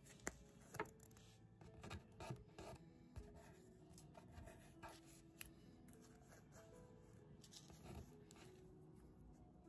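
Quiet close-up rustling, scratching and small clicks of holographic paper stickers being peeled and handled by fingers.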